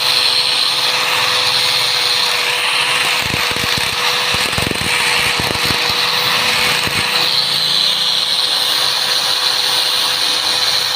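Power tool running steadily: a loud, even whirring hiss over a constant hum, with a few low knocks in the middle.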